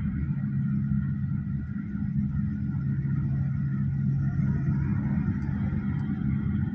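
Steady low drone of road and engine noise inside the cabin of a moving Hyundai Staria van as it cruises along a highway.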